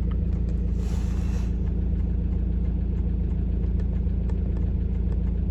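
Ford Transit van's engine idling steadily at about 850 rpm, heard from inside the cab, while it warms up after a cold start at −19 °C. A brief hiss comes about a second in.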